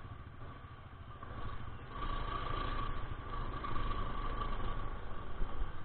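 Honda Click 125i scooter's single-cylinder engine running at low speed, getting louder about two seconds in as it picks up a little, with a faint steady whine over the engine.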